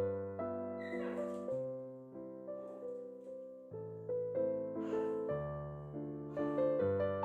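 Gentle piano music playing, with a few short scratchy parrot calls over it: one about a second in, and two more around five and six and a half seconds.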